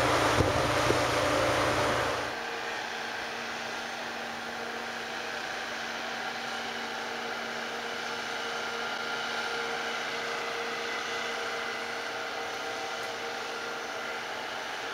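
Wind buffeting the microphone with a few pops, then about two seconds in it drops to a steady, even mechanical hum with a faint low tone.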